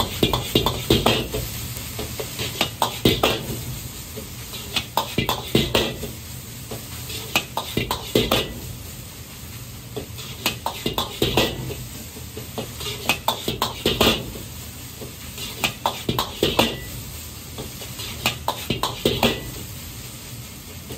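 Metal ladle clanking and scraping against a wok as egg fried rice is stir-fried and tossed, with the rice sizzling. The clanks and sizzle come in louder bursts about every two to three seconds.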